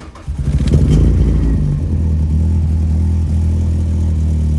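Volkswagen Golf Mk2 GTI's engine starting: it catches within the first second, runs up briefly, then settles into a steady idle.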